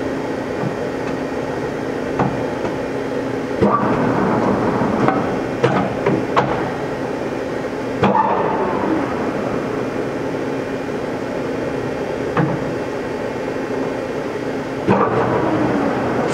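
Sharp 1660C gap-bed engine lathe running with a steady hum from its geared head. Over it come about eight sharp metallic knocks, a few in quick succession, as its controls are shifted.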